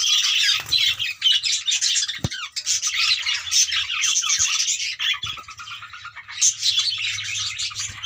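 A breeding colony of budgerigars chattering, with many overlapping high chirps and squawks that never stop.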